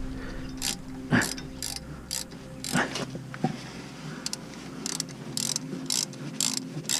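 Hand socket ratchet clicking in short, irregular strokes, about two clicks a second, as it drives a brake caliper guide bolt into its thread.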